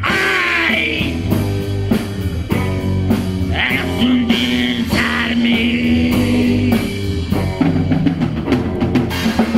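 Live rock band playing an instrumental passage: drum kit with steady cymbal and drum hits under sustained electric bass and electric guitar notes.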